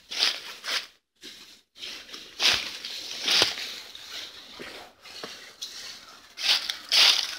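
Footsteps crunching and rustling through dry fallen leaves, an uneven run of steps with pauses between.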